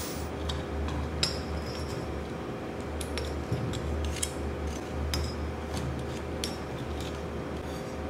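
Light metallic clicks and taps as a steel knife blade, ground from an old file, is handled and fitted into its folded copper-pipe handle. A few scattered ticks come over a steady low hum.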